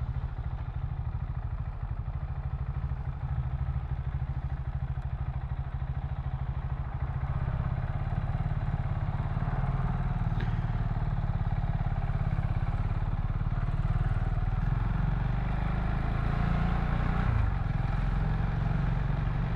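2014 KTM Duke 690's single-cylinder engine running steadily while the bike is ridden.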